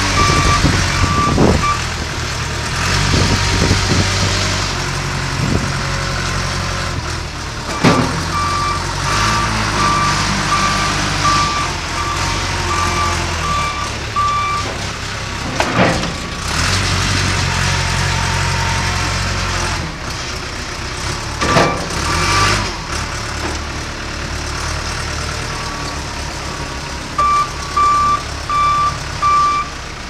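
John Deere 310D backhoe loader's four-cylinder diesel engine running as the machine drives and turns, its engine note rising and falling. A reversing alarm beeps in stretches: at the start, through the middle, and near the end. A few sharp clanks stand out over the engine.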